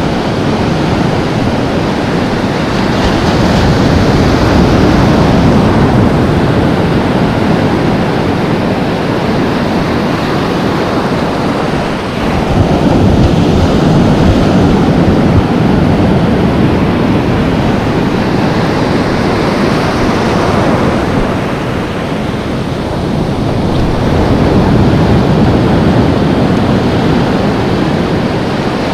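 Ocean surf breaking and washing in over the shallows, swelling and easing every several seconds.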